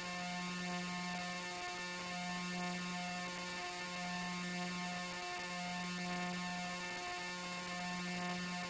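Steady electrical hum with a faint hiss, a low buzzing tone with overtones that cuts out briefly about every second and a half to two seconds.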